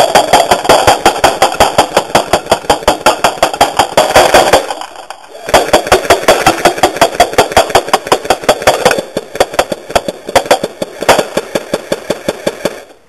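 AK47-style airsoft BB gun firing on full auto: a rapid, even rattle of shots at about ten a second. It comes in two long bursts with a brief pause about four and a half seconds in.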